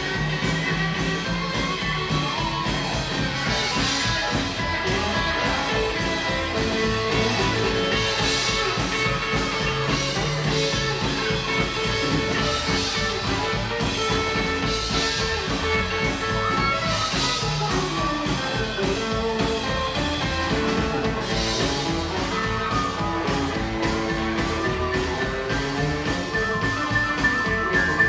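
Rockabilly band playing live: an instrumental passage of a rock-and-roll number, with electric guitar, upright double bass, drum kit and keyboard over a steady driving beat.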